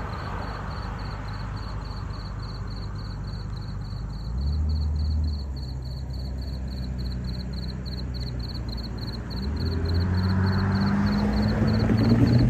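Railroad crossing bell ringing steadily, about three strikes a second. A low engine hum swells briefly about four seconds in, and grows louder and stays over the last few seconds.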